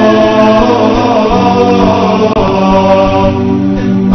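Programme theme music with chanted vocals: held sung notes over a steady low beat.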